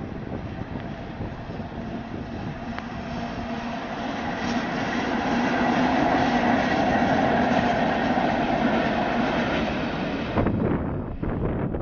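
FS E656 electric locomotive running light, with no train behind it, passing close by. The rumble of its wheels on the rails swells to its loudest about six seconds in, then fades as it draws away.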